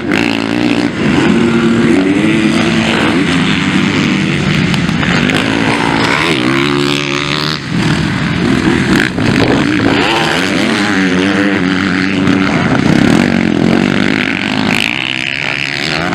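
Motocross bikes racing, their engines revving up and dropping off again and again as the riders work the throttle through the jumps and corners.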